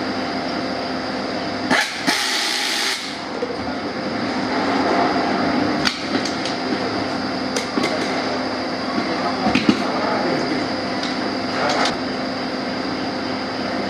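An overhead air-powered screwdriver runs in a noisy burst of about a second, roughly two seconds in, driving a screw into an aluminium engine crankcase. A shorter run follows near the end. Sharp metal clicks and knocks of tools and parts come in between, over a steady workshop hum with a constant whine.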